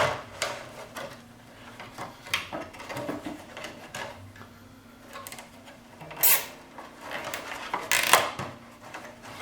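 Plastic zip ties being fed through drilled holes along a crack in a snowmobile windshield and pulled tight: scattered clicking and rattling handling, with two short, sharp zipping pulls about six and eight seconds in.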